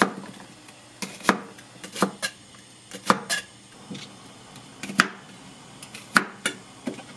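Sharp steel kitchen knife slicing a Korean green onion into rounds on a plastic cutting board: about ten separate knocks of the blade on the board, coming unevenly one or two a second.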